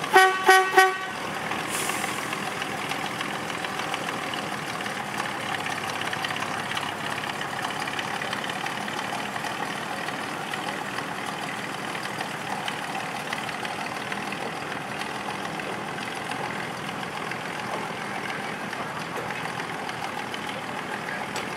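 Three quick toots of a horn, then the gasoline engine of Rio Grande Southern Galloping Goose #4, a rail motorcar, running steadily.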